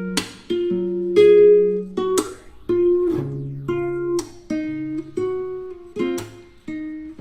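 Background music: an instrumental passage of plucked guitar, notes and chords struck at an uneven pace and left to ring, with no singing.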